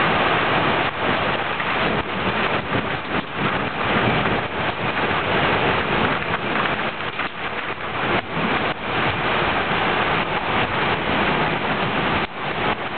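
Heavy rain pouring down in a thunderstorm, a steady dense hiss of water falling on trees and the surroundings.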